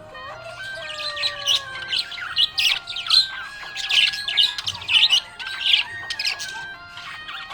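Budgerigar chirping and warbling in rapid, high-pitched bursts that grow louder about two seconds in.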